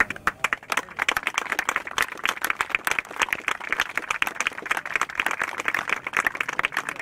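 A group of people applauding, the clapping starting suddenly and going on thick and steady.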